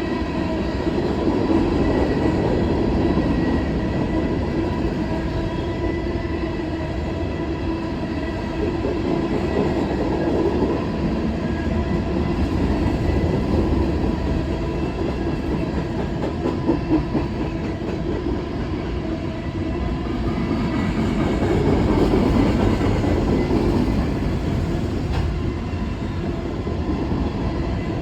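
CSX freight train of coke hopper cars rolling past: a steady rumble of wheels on rail with a faint, steady whine from the wheels. A few sharper clacks come about two-thirds of the way through.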